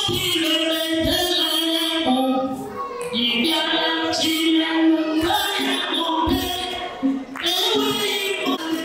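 Female voices singing a song in long held phrases, with short breaks between the lines.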